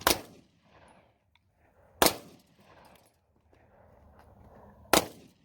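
Three single gunshots, the first two about two seconds apart and the third about three seconds later, each dying away quickly.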